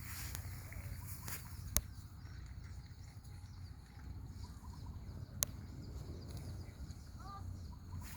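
Steady low rumble with two sharp clicks a few seconds apart and a couple of faint, short, high squeaks near the end.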